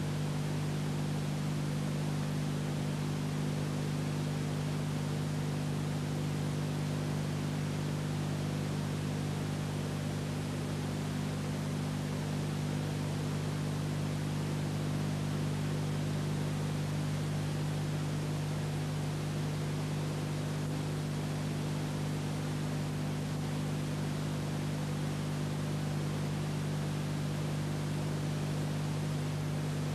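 Steady hiss with an unchanging low electrical hum and no other sound: the background noise of an old analog transfer of silent archival film.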